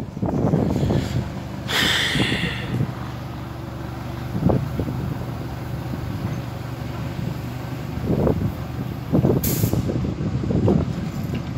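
Small narrow-gauge locomotive running around its train at low speed, its engine holding a steady hum. A short hiss of air comes about two seconds in and another, higher one near the end, with a few sharp knocks in between.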